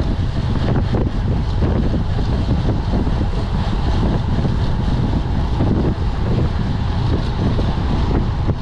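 Wind buffeting the microphone of a camera on a road bike riding at speed in a group: a steady, loud low rumble.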